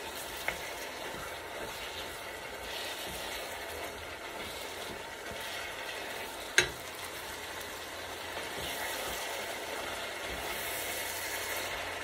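Ground beef, onions and red bell peppers sizzling in a metal pan while a wooden spoon stirs and scrapes through them, with one sharp knock about six and a half seconds in.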